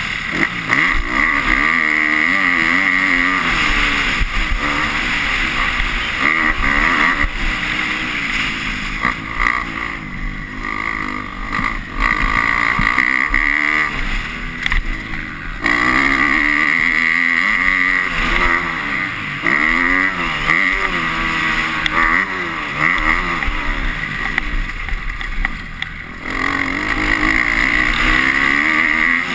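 250-class motocross bike engine, heard onboard, revving up and dropping off again and again as the rider works the throttle around the track. The pitch climbs and falls over and over, with brief letups in loudness around the middle and near the end.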